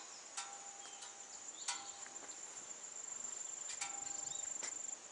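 Insects trilling steadily in one continuous high-pitched tone, pulsing faster for a stretch near the end, with a few short sharp clicks.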